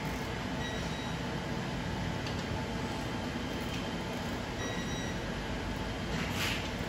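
Steady background hum and hiss of a tire shop, with a few faint short high beeps and a faint brief sound about six and a half seconds in.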